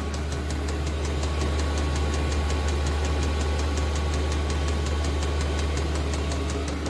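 Chinese 5 kW diesel air heater running at full power: a steady low hum from its combustion blower fan, with the dosing fuel pump ticking evenly several times a second.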